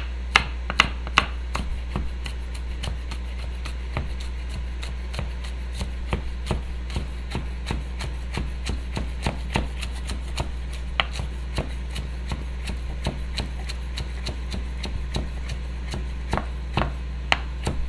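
Kitchen knife chopping scallions on a wooden cutting board: quick, irregular knocks of the blade on the board, a few a second, the loudest near the start, over a steady low hum.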